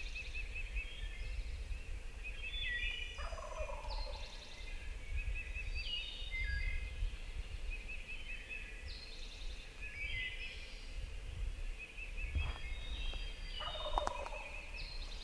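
A wild turkey gobbling twice, about three seconds in and again near the end, over a dawn chorus of songbirds chirping and trilling.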